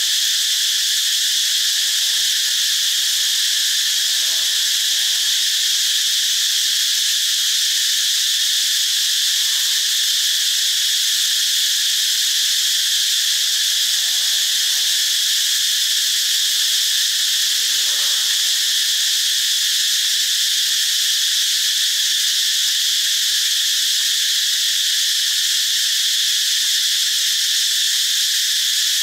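A steady, unbroken, high-pitched insect chorus, dense and loud, with no pauses or changes.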